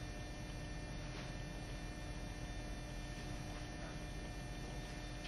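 Steady electrical hum with several constant tones over a low hiss, the room tone of a theatre recording, with a faint click about a second in.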